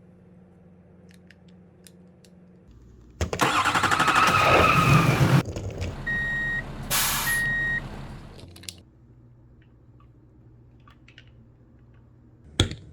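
Toy truck's electronic sound effect: a loud engine-start rumble lasting about two seconds, followed by two short beeps. A few light clicks come before it and one sharp click near the end.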